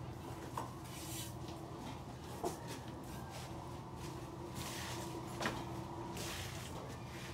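A few sharp knocks, three in all, with short bursts of rustling or scraping noise over a steady low hum.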